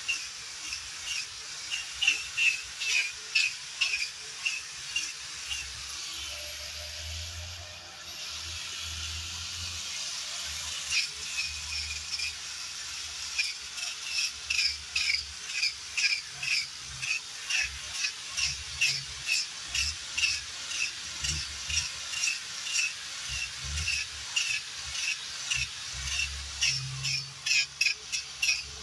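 A wire brush scrubbing rotted wood in rhythmic, scratchy back-and-forth strokes, about two a second. The strokes give way to a steadier scraping for a few seconds about a quarter of the way in. The rotten wood is being brushed off the sound timber underneath.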